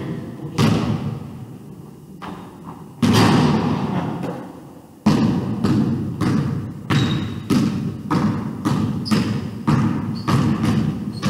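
Basketball bouncing on a hardwood gym floor, each bounce echoing in the large hall. There are a few single bounces at first, then from about five seconds in a steady dribble of roughly two bounces a second.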